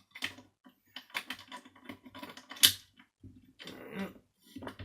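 Irregular grinding clicks and scrapes from a failed Miele S5211 vacuum cleaner motor as a socket is turned on its central nut, with one sharp click about two and a half seconds in. The nut will not undo; only the spindle turns, grinding against the wrecked motor's loose metal debris inside.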